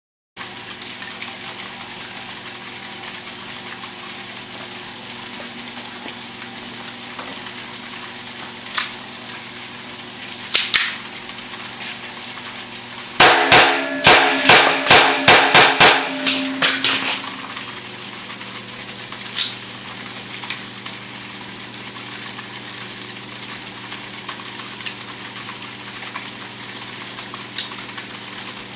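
Makarov 9x18mm pistol fired rapidly into a steel bullet trap, about eight shots in under three seconds, with a short ringing tail. A few sharp clicks come a few seconds earlier, over a steady background hum.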